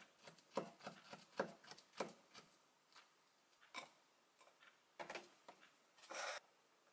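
Kitchen knife slicing a banana on its peel, with a quick run of light taps against the countertop in the first couple of seconds. Then come a few scattered soft knocks as the slices go into a wooden bowl, and a short scraping noise near the end.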